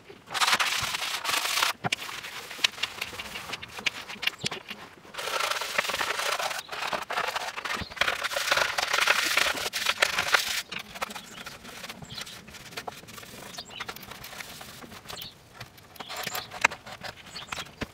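Microfibre cloth scrubbing foamy helmet cleaner over the plastic shell of an Airoh GP550 S motorcycle helmet, in rough rubbing spells, a short one at the start and a longer one in the middle. Small clicks and knocks come as the helmet is turned and handled.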